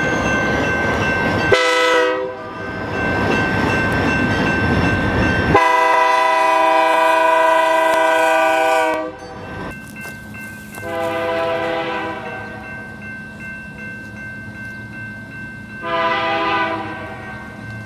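Locomotive Nathan Airchime K3-series (K3H/K3L) three-chime horn blowing a chord. There is a short blast about two seconds in, then a long blast of about three seconds, both over the loud rush of the passing train. After a break come two shorter, quieter blasts.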